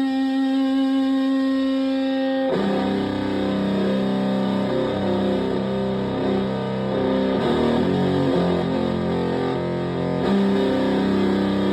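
Stratocaster electric guitar played through a Tone Bender MKII-style fuzz pedal into a Twin Reverb-style amp, with a thick, distorted tone. A single note is held for about two and a half seconds, then a lower riff of shifting notes is played.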